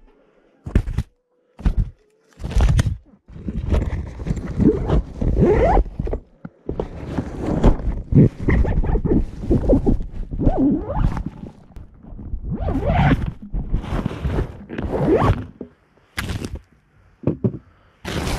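Close handling noise from inside a zippered bag: a zipper, rustling fabric, scraping and knocks as a hand rummages among the LiPo battery packs. It starts as a few short bursts, runs almost without a break through the middle, and ends with a few separate knocks.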